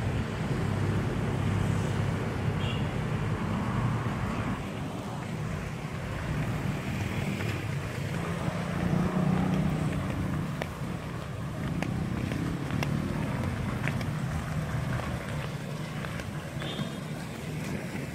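Motorcycle engine running steadily under way, with wind noise on the microphone over a low rumble.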